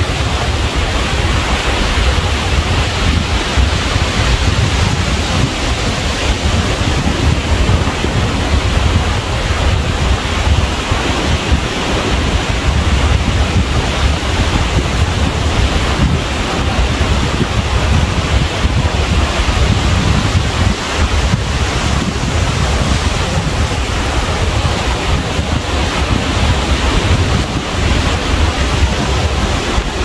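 Ocean surf washing steadily, with wind buffeting the microphone in a low rumble.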